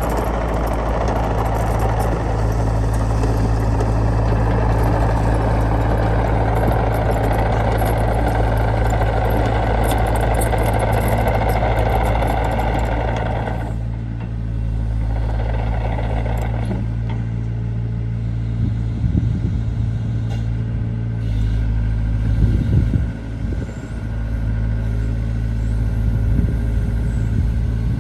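Hyundai Robex 80CR-9A midi excavator's diesel engine running steadily, with a heavier working noise that eases off about halfway through and a few clunks later on.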